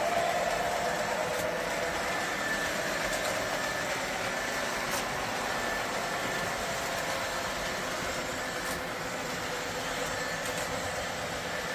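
O gauge model trains running on a layout: a steady rolling rumble of wheels on three-rail track, with a faint, steady motor whine.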